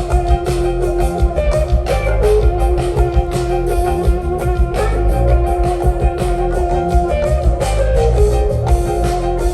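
Live rock band jamming instrumentally: electric guitar playing sustained notes over bass and a steady drum-kit beat.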